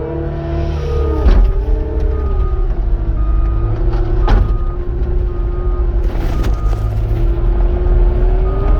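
Cat 259 skid steer's diesel engine running under load, with its hydraulic whine changing pitch as it works, and a backup alarm beeping at intervals while it reverses. A few sharp clanks from the machine, about a second in, near the middle and later.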